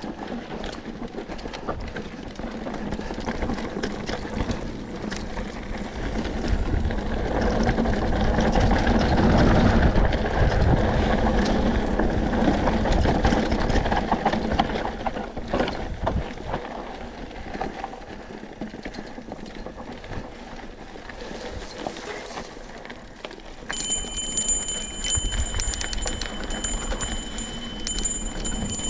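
Mountain bike rolling fast down loose, rocky dirt singletrack: tyres crunching over gravel and stones, the bike rattling and knocking over rocks, and wind rumbling on the microphone. About five seconds before the end, a steady high ringing tone with even ticking joins in, bell-like.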